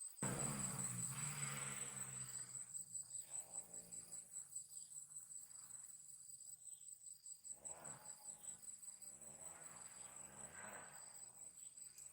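Insects trilling, a steady high-pitched pulsing chorus.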